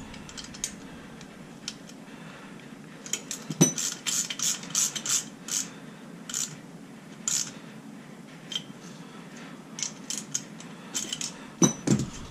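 Small metal parts and tools clicking and clinking in scattered clusters as steel cylinder studs are threaded into an 80cc motorized-bicycle engine's crankcase, with a couple of duller knocks.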